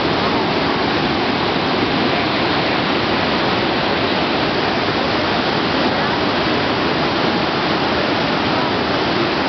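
Water spilling from Cherokee Dam, a steady, unbroken rush of falling and churning water.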